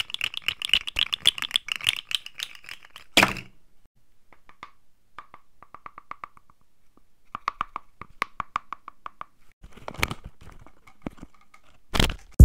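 Folded paper dragon puppet's jaws snapping and crinkling paper close to a microphone: a fast run of clicks for about three seconds that ends in a sharp crunch, then scattered clacks in short runs and a louder thump near the end.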